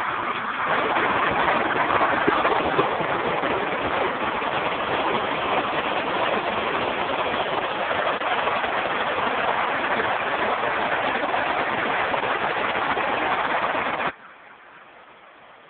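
Artificial waterfall: water pouring down in a steady, even rush. It cuts off suddenly near the end.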